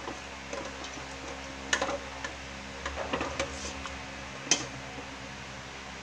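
Ladle knocking and scraping against a stainless steel cooking pot while stirring, with a few sharp clinks about two seconds in and again around three and four and a half seconds, over a steady low hum.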